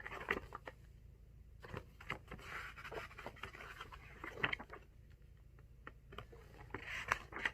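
Soft rustling, scraping and light taps of paper and snack packaging being handled, with short hissy rustles around two seconds in, around three seconds in and again near the end.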